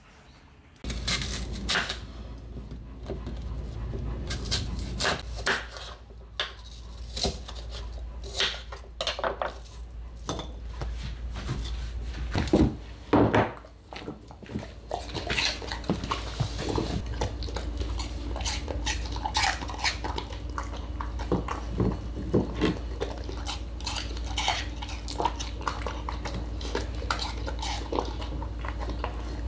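A golden retriever eating from a bowl: irregular clinks and knocks of the bowl as it eats, with a louder clatter about halfway through, over a steady low hum.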